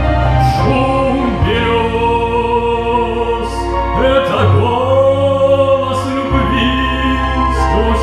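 Male singer singing a slow lyrical ballad live into a microphone over an instrumental accompaniment, holding long notes with vibrato.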